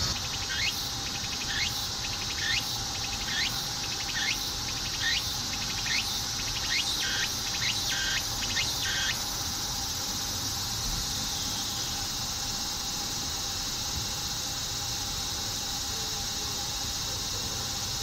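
Insect chorus: a steady, high, shrill hiss. Over it, a pulsing, sweeping call repeats about once a second in the first half, quickening before it stops about halfway through.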